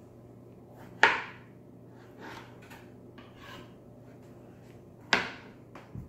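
Kitchen knife chopping strawberries on a plastic cutting board. Two sharp knocks of the blade striking the board come about a second in and about five seconds in, with softer taps and cuts between them.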